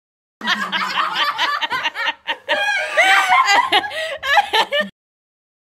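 Laughter, with a short break about two seconds in, cut off suddenly near the end.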